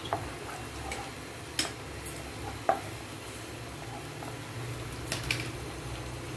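A spoon stirring vegetables and ginger-garlic paste in a pan, with a few sharp clinks of metal on the pan over a steady low background hum.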